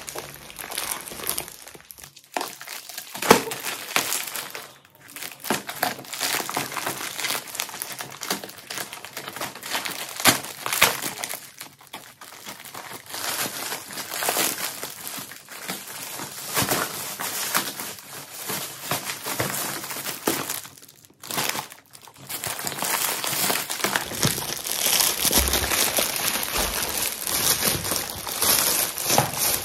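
Plastic packaging crinkling and rustling as a poly mailer bag is cut open with scissors and pulled apart, then a clear plastic bag from inside it is cut open. It comes in fits and starts with short pauses, and it is densest near the end.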